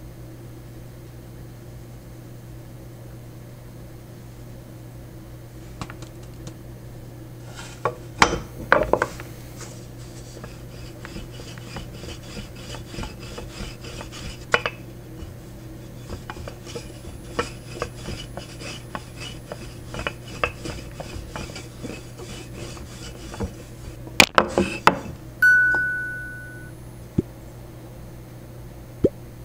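Wooden rolling pin rolling out dough on a flour-dusted wooden board: a few knocks, then a long run of light rubbing clicks as it rolls. Late on come a cluster of louder knocks and a short metallic ring that dies away, and near the end a few light taps of a metal cookie cutter pressing into the dough.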